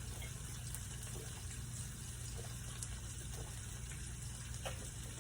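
Pieces of perch simmering in a pan on the stove: a steady bubbling hiss with a few faint pops.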